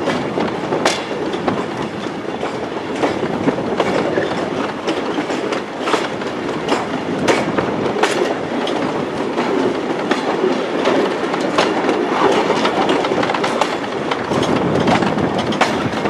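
Running noise of a goods brake van at the rear of a moving freight train: a steady rumble and rattle, with sharp irregular clicks of the wheels over rail joints and pointwork.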